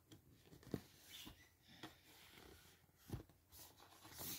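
Faint handling sounds of a cardboard phone box: a few soft taps and rustles as fingers grip and turn it, otherwise near silence.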